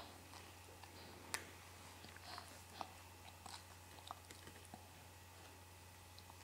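Faint crunching and crackling of puffed millet being chewed, in scattered small crunches with the sharpest about a second in, over a steady low hum.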